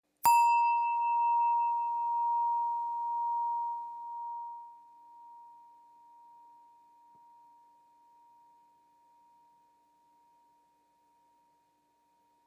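Singing bowl struck once, ringing with one clear tone over fainter higher overtones. Its loudness wavers as the tone slowly fades away over about ten seconds.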